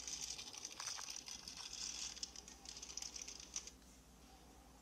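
Faint rustling and crackling with quick irregular clicks, played back through a tablet speaker, dying away after about three and a half seconds.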